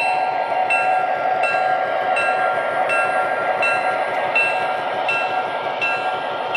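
Model O-gauge F7 diesel locomotive set running past: the steady rumble of its Proto-Sound 3.0 diesel sound and wheels on the track, with a bell ringing evenly about three strikes every two seconds.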